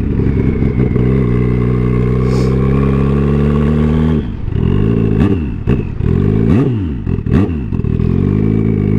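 Turbocharged Suzuki Hayabusa's inline-four engine running under the rider at a steady pitch. From about four seconds in, the revs rise and fall in several short swells as the throttle and gears change.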